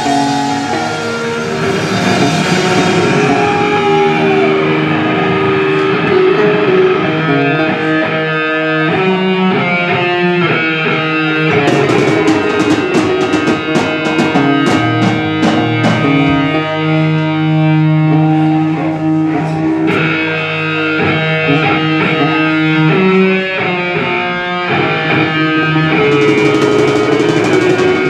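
Live rock band playing: electric guitar over a drum kit, with a run of sharp cymbal and drum hits in the middle.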